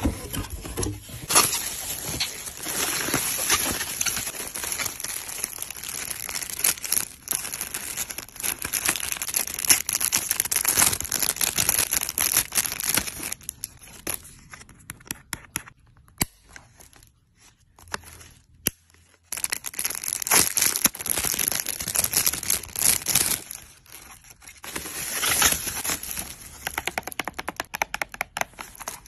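Bubble wrap and plastic packaging crinkling and crackling as items are unwrapped and handled by hand. It comes in busy stretches, with a much quieter spell about halfway through.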